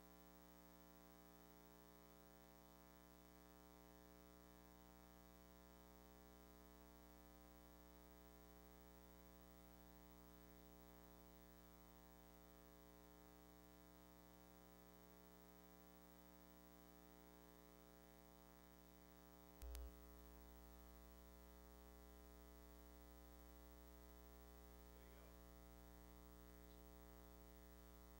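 Near silence: a faint steady electrical hum, with one short click or thump about twenty seconds in.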